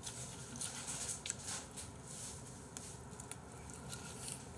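Faint crinkly rustling and light crackles as pieces of crispy fried chicken are picked from the plate and handled by hand, over a faint steady hum.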